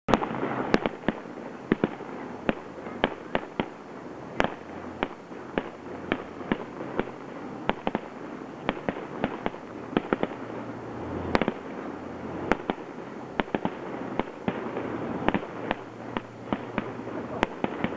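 Aerial fireworks display: many sharp bangs of bursting shells, several a second, over a continuous rushing noise of the show.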